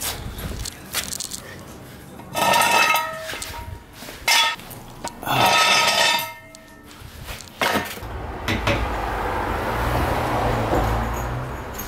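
Metal clanking and ringing from a steel floor jack and its handle being handled, loudest in two clattering bursts of about a second each, with a sharp knock between them. Near the end a steady low rumble comes in.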